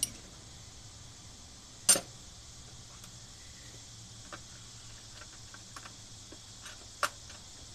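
A few sharp clicks and clinks of small metal hand tools being handled, the loudest about two seconds in and another about seven seconds in, with faint ticks between.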